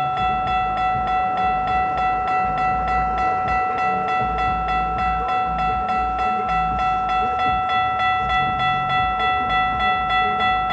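Level-crossing warning bell ringing in a steady, rapid, even rhythm, over the low rumble of a GO Transit commuter train passing.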